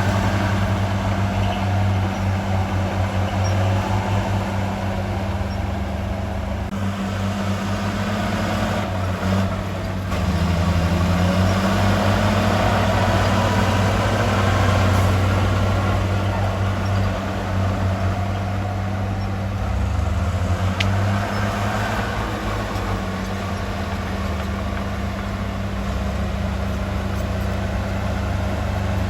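Heavy diesel engine of construction equipment running steadily, its low note shifting in pitch briefly a few times as the machine is worked.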